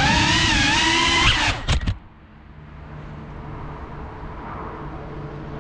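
FPV quadcopter's brushless motors whining with a wavering pitch, cutting off about a second and a half in. A few short knocks follow as the drone touches down. After that only a faint steady low hum remains.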